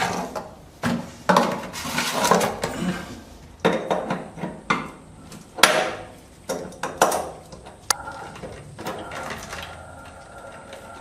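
Hard parts being handled and knocked together, plausibly toilet cistern fittings: irregular clattering knocks with scraping and rustling between them.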